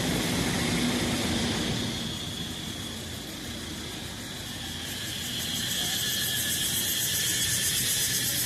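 A passing vehicle runs under a steady, high, shrill chorus of calling creatures. The vehicle's hum fades within the first couple of seconds. The chorus swells again with a fast, even pulsing from about five seconds in.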